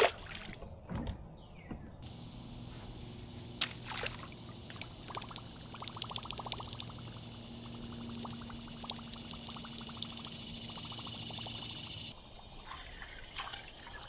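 A largemouth bass dropped back into the river hits the water with a splash. It is followed by steady trickling, pouring water with a faint low hum and a high hiss, which drops away suddenly near the end.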